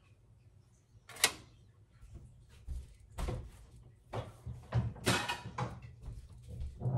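Kitchen cabinet doors and drawers being opened and shut: a sharp click about a second in, then several knocks and clunks.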